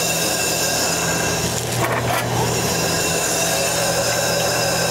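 Steady hum and hiss of running machinery, with a couple of faint light clicks about two seconds in as the nozzle is handled and fitted onto the laser cutting head.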